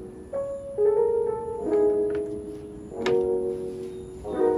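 Background music: an instrumental tune, with a new note or chord starting about every second.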